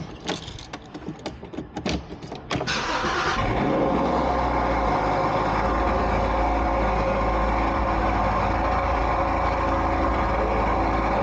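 A few irregular clicks, then a Porsche 981's flat-six engine starts about two and a half seconds in and settles into a steady idle.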